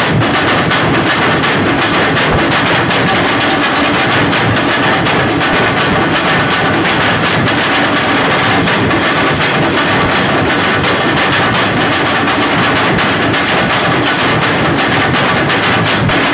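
A group of large barrel drums beaten hard with sticks in a fast, continuous rhythm, loud throughout, the strokes running together into a dense din.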